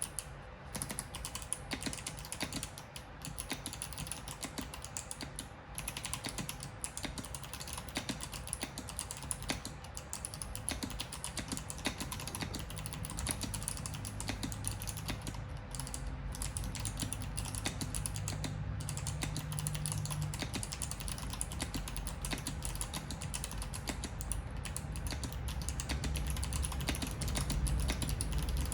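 Fast, continuous typing on a custom mechanical keyboard with unlubricated Kailh Box White clicky switches in an acrylic case, each keystroke a crisp click, with a few brief pauses.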